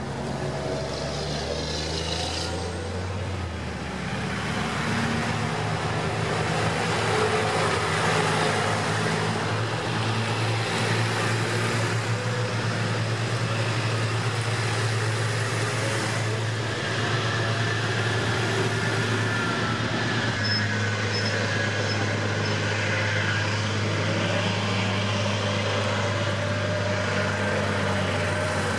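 Military convoy of wheeled armoured vehicles and army lorries driving past one after another: diesel engines running with a steady low hum, and tyres on tarmac.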